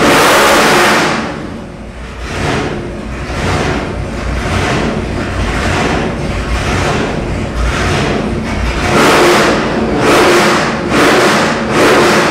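Roots-supercharged 572 cubic-inch big-block Chevrolet V8 being free-revved: one long rev at the start, then about a dozen quick throttle blips roughly once a second, each falling back toward a fast idle, with the last ones reaching past 4,000 rpm.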